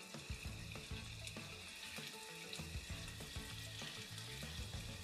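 Mutton keema kofta balls shallow-frying in hot oil in a nonstick frying pan, sizzling steadily with small crackles.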